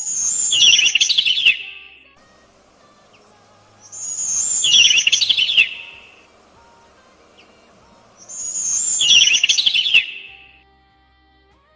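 A bird singing: three phrases about four seconds apart, each starting high and dropping into a fast, warbling run of notes.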